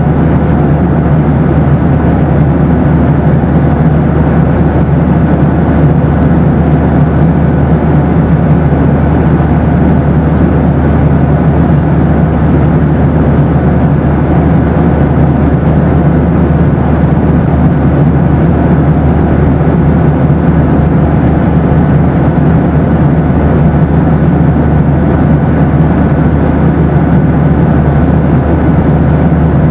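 Boeing 737 in flight: a steady, deep rushing drone of jet engines and airflow, with faint steady hums above it, unbroken throughout.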